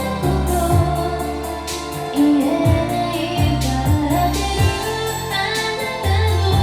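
A woman singing a Japanese pop ballad over a karaoke backing track with steady bass notes.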